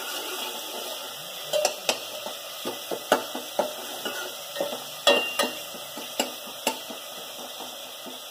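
Long steel ladle stirring and scraping onion, garlic and ginger paste as it fries in mustard oil in an open pressure cooker. A steady sizzle runs under irregular scrapes and clinks of the ladle against the pot, the sharpest about three and five seconds in.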